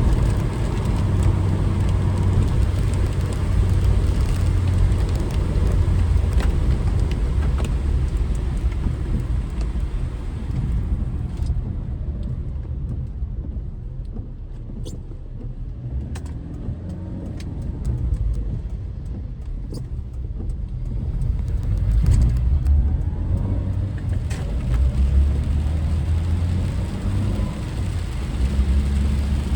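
Car driving: steady low road and engine rumble with tyre noise, easing off for several seconds in the middle as it slows, then rising again.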